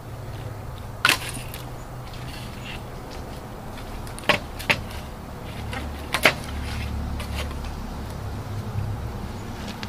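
Metal knocks and clanks as a bus radiator's slatted shutter assembly is lifted off the radiator: one sharp knock about a second in, two about four seconds in and two more about six seconds in, over a steady low hum.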